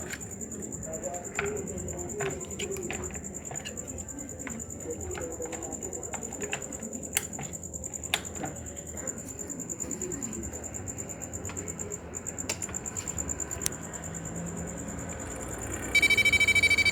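Sharp clicks and knocks from handling a Gigabyte GA-F2A68HM-S1 motherboard as a RAM stick is seated, under a faint steady high whine. About a second before the end the board's speaker starts a loud continuous beep: its fault beep with RAM fitted and no display, which the technician fixes by jumpering 3.3 V to the RAM slot.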